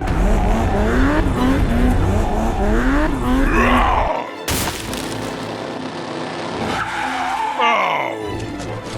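Vehicle sound effects: an engine running with squealing, skidding tyres for the first four seconds, then a sharp impact about four and a half seconds in.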